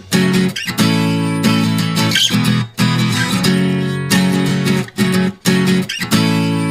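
Background music: strummed acoustic guitar chords in a repeating rhythm, with brief breaks between phrases.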